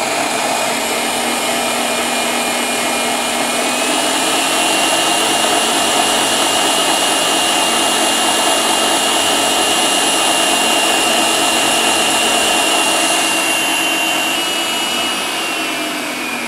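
Electric stand mixer beating eggs and sugar at speed: a loud, steady motor whine that steps up in pitch about four seconds in and winds down near the end.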